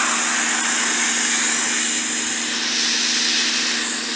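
Ryobi 1600 psi electric pressure washer running, a steady motor-and-pump hum under the loud hiss of its high-pressure water jet spraying onto a wooden picnic-table bench.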